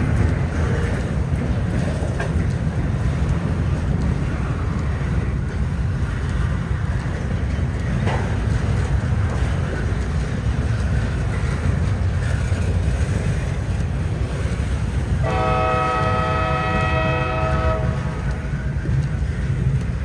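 Double-stack intermodal train rolling past, its well cars rumbling steadily over the rails. About fifteen seconds in, a locomotive horn sounds one blast of about two and a half seconds.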